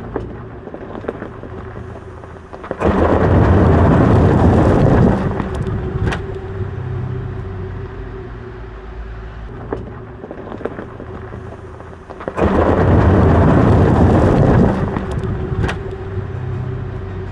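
Electric Mercedes-Benz G580 driving off-road on a loose surface: two loud rushing surges of tyre noise, each about two seconds long, come about three seconds in and again about twelve seconds in. A steady hum runs under them, with a few sharp knocks.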